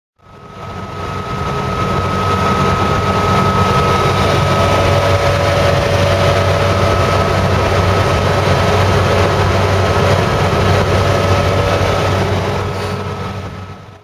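Engine and road noise heard inside the cabin of an older car on the move: a steady rumble with a thin high whine over it, fading in over the first two seconds and fading out near the end.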